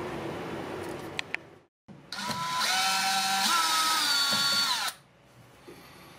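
Cordless drill-driver motor whining for about three seconds as it drives a screw into a fuse block terminal, its pitch shifting a few times before it stops suddenly.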